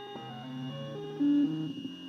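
Vinyl-cutting plotter's stepper motors whining at a series of steady pitches that jump up and down as the cutter moves, with a short louder tone a little past the middle.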